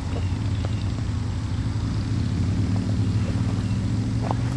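Diesel locomotive engine running with a steady low drone, its pitch creeping up slightly over a few seconds.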